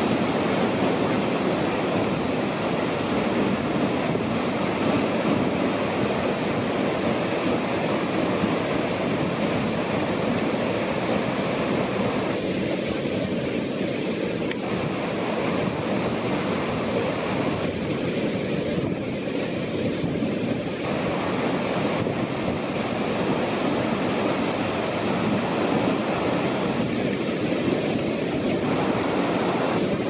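Tall waterfall in heavy flow after a typhoon, crashing into its plunge pool: a steady, unbroken rush of water.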